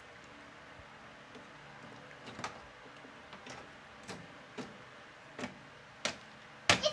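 Plastic front grille of a Sharp window-type air conditioner being fitted back onto the unit: a series of light clicks and knocks, roughly one every half second to a second, ending in two louder snaps as it is pressed into place.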